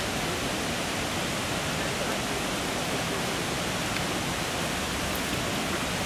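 Steady rushing of flowing water, an even unchanging hiss.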